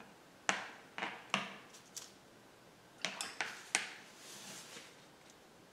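Oil-painting tools being handled: a string of about seven short, sharp taps and scrapes, some in quick groups of three, then a soft swish.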